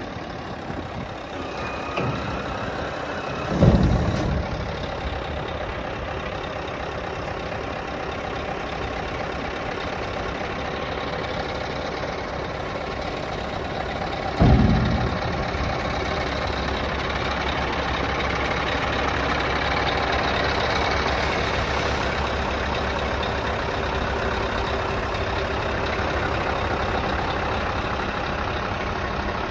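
Scania R560 tipper truck's V8 diesel engine running steadily while the hydraulically raised tipper body is lowered. Two loud knocks cut in, one about 4 seconds in and one about 15 seconds in. After the second knock the engine runs a little louder.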